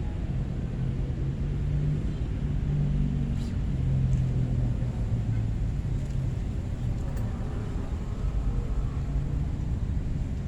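Low rumble of a motor engine with a droning tone that wavers in pitch and fades away about halfway through, over a steady low background noise.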